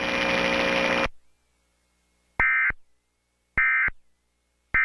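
An Emergency Alert System broadcast closing: a steady buzzy tone cuts off about a second in, then come three identical short, shrill data bursts about a second apart. These are the end-of-message code bursts that mark the end of the tornado warning.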